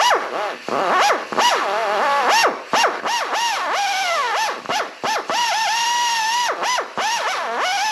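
Pneumatic right-angle drill (air drill) whining and hissing as it drills out stripped threads in an aluminum cylinder head. It runs in short bursts with the whine rising and falling in pitch, and is held steady for about a second and a half around the middle.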